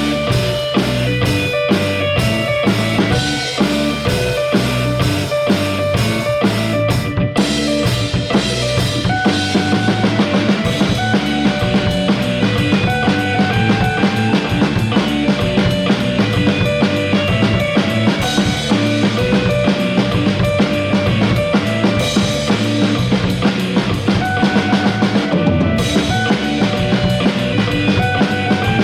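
Rock drum kit played at full tilt with kick, snare and cymbals, over a band's music with guitar and bass.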